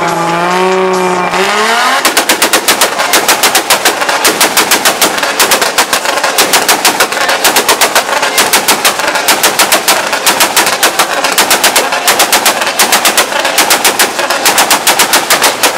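Toyota Supra's engine revving up, then held on a two-step launch limiter so the exhaust fires a rapid, steady string of loud bangs and pops, several a second. The limiter is cutting ignition, and unburnt fuel is going off in the exhaust.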